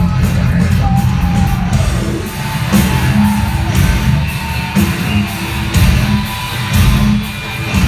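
Live mathcore band playing at full volume through a concert PA: heavily distorted electric guitars and bass over pounding drums with crashing cymbals, heard from the audience.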